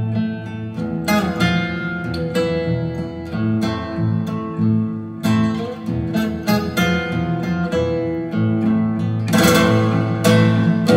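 Acoustic guitar music, plucked notes with a few strummed chords, played back through SABA Green Cone full-range speakers in Bongo cabinets driven by a 300B single-ended tube amplifier.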